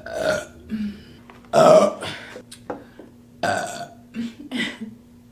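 A woman burping several times, a string of separate belches, the loudest and longest about a second and a half in.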